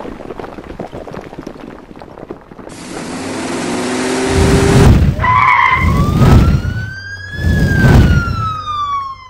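Intro sound effects: a rushing whoosh that swells, then three heavy explosion booms about two seconds apart. Over the last booms a police siren wails, rising in pitch and then falling away.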